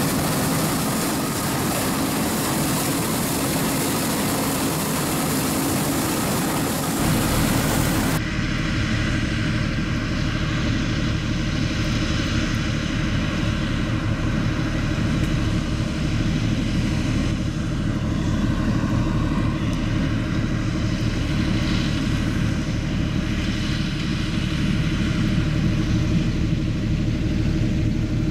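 Claas Lexion 460 combine harvester running while cutting oilseed rape. For the first eight seconds or so it is heard from on board beside the header as a loud, dense noise. Then, after an abrupt change, it is heard from within the crop as a steady low drone of engine and machinery.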